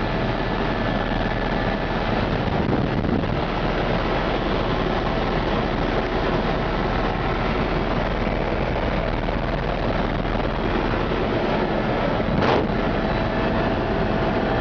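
Steady engine and rotor noise of a helicopter heard from inside the cabin, with a short knock about twelve seconds in.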